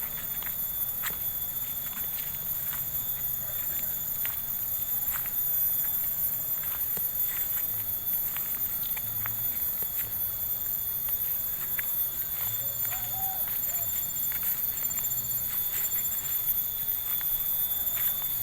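Steady shrill chorus of insects: several continuous high-pitched tones layered together, with a short pulsing trill in the middle. Scattered footsteps and light clicks sound beneath it.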